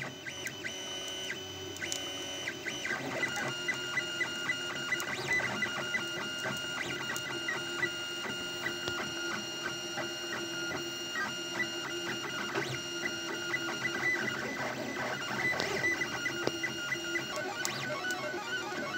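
A Prusa-type A6 3D printer printing, its stepper motors driving the hot end and bed in quick moves and singing in several steady tones that pulse and change pitch from move to move, with light ticks.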